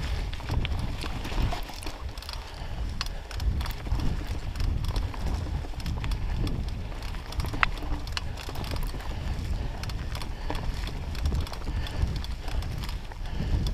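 Mountain bike riding along a leaf-covered dirt singletrack: tyres crunching over dry leaves, with a steady low rumble and frequent clicks and rattles as the bike jolts over the trail, picked up by a microphone on the handlebars.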